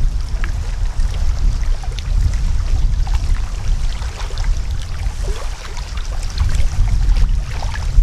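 Wind buffeting the microphone: a loud, gusting low rumble, with faint short chirps and ticks scattered through it.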